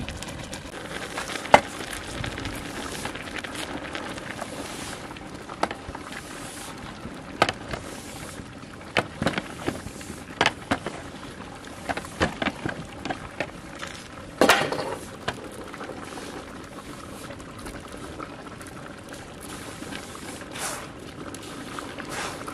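Large aluminium pot of natural dye boiling hard with eri silk in it, giving a steady bubbling hiss. Scattered sharp clicks and knocks run through it, the strongest about a second and a half in and again about fourteen seconds in.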